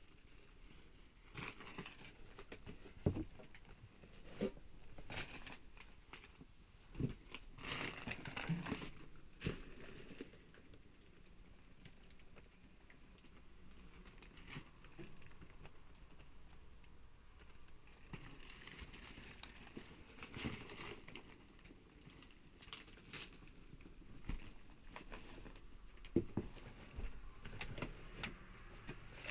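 Footsteps and handling among heaps of paper and household junk: irregular rustling and crinkling with scattered sharp knocks, coming in clusters with quieter stretches between.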